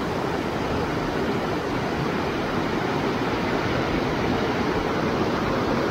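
Steady rush of a fast-flowing mountain stream.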